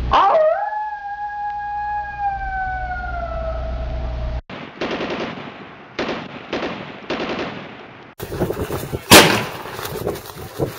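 A long sustained tone that slides slowly down in pitch, followed by several quick bursts of gunfire; then, in open-air range sound near the end, one loud gunshot.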